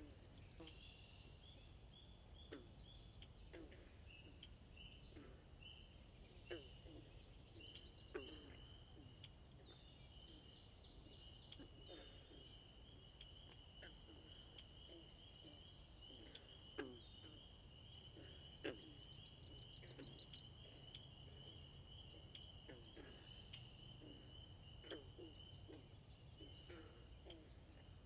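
Faint wetland ambience: a flamingo flock's short, low, falling calls repeat over and over, over a steady high insect trill. Small birds chirp now and then, loudest about eight and eighteen seconds in.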